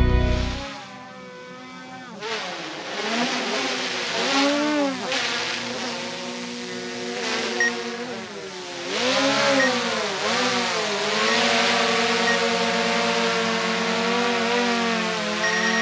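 Quadcopter drone's motors and propellers whining steadily. The pitch swoops down and back up twice as it manoeuvres, then holds level.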